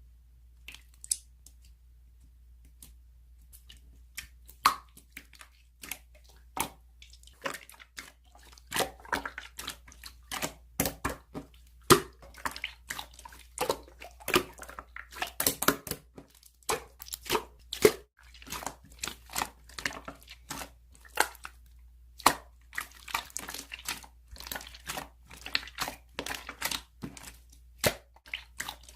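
Hands squishing and working slime, making an irregular run of wet clicks and pops. It is sparse for the first few seconds, then gets busy and continuous.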